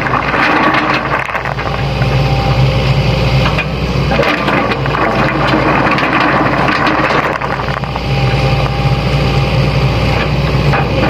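Sany hydraulic excavator's diesel engine running under load, its note swelling and easing every few seconds as the machine works, with scattered knocks and scraping as the bucket moves stones.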